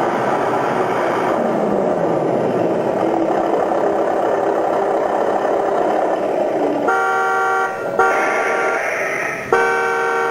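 RC truck sound module (UAVS) playing a simulated truck engine running, then a chord-like truck horn sounding in three short blasts over the last three seconds.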